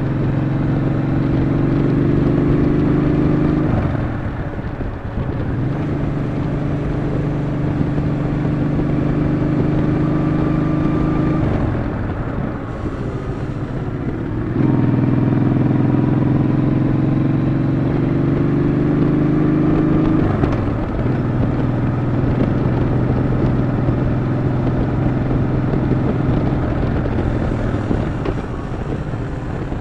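Yamaha XV950 Bolt's air-cooled V-twin engine running under load on the move, its note slowly rising with speed, then easing off briefly about four, twelve and twenty seconds in and again near the end.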